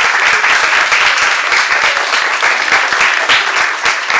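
Audience applauding: loud, dense clapping from many hands.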